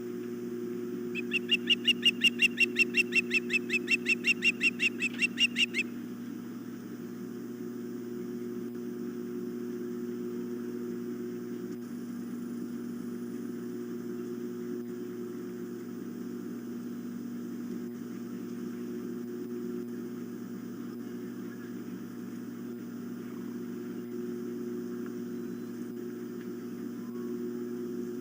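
Osprey calling: a rapid run of about two dozen short, high chirps lasting about four and a half seconds, starting about a second in, over a steady low hum.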